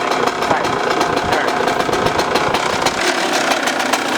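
Small vehicle engine running steadily at idle, its firing pulses coming in a quick even beat.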